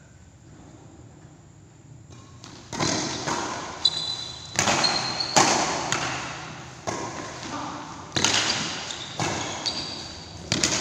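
Badminton rally: rackets striking the shuttlecock about once a second, starting a couple of seconds in, each sharp hit echoing in the hall. Short shoe squeaks on the court floor are heard between some of the hits.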